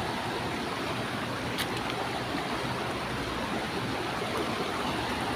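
Steady rush of river water spilling white over a low concrete step and around concrete blocks, with one faint click about a second and a half in.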